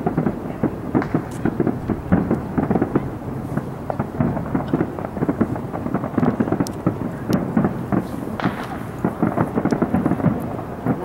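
Fireworks show: aerial shells bursting one after another in quick succession, their booms overlapping into a continuous rumble.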